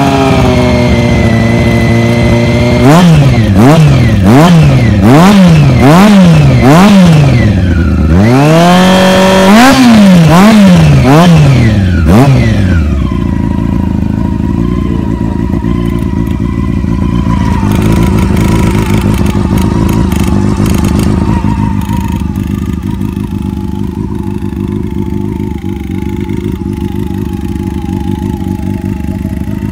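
Honda CBR400's four-cylinder engine through a LeoVince aftermarket exhaust, revved up and held briefly, then blipped about five times in quick succession, raised again and blipped a few more times. About halfway through it drops back to a steady idle.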